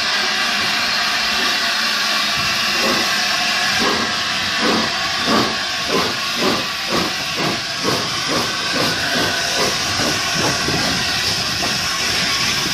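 LNER A4 Pacific steam locomotive No. 4464 'Bittern', a three-cylinder engine, moving off under steam: a steady loud hiss of escaping steam, joined about three seconds in by exhaust chuffs about two a second that quicken slightly as it gathers speed, easing off near the end.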